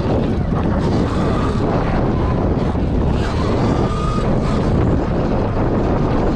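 Wind noise buffeting the microphone on a moving Sur Ron X electric dirt bike, over tyres on dirt and a faint whine from its electric drivetrain that rises briefly near the middle.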